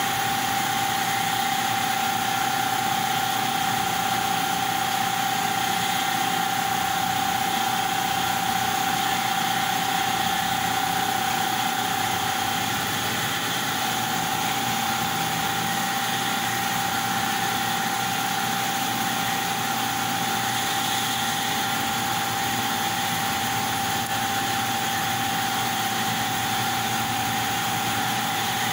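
CNC laser cutting machine running as it cuts a sheet: a steady mechanical drone of its fans and motion system with one constant mid-pitched whine over it.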